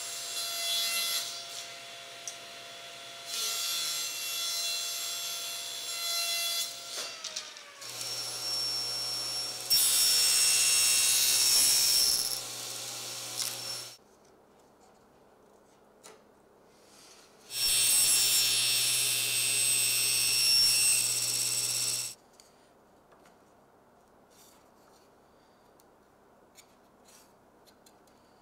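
Woodworking power tools cutting strips of walnut stock: a machine runs and winds down in pitch about seven seconds in, then two loud cuts of several seconds each. Between and after the cuts it is quiet, with a few faint taps as the pieces are fitted by hand against the case.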